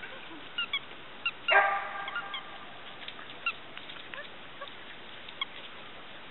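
One short honking call about a second and a half in, the loudest sound here, with scattered faint short chirps before and after it.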